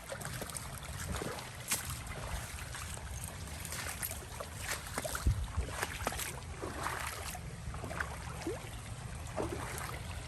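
Rainwater runoff flowing steadily across the ground after heavy rain, with scattered drips and splashes.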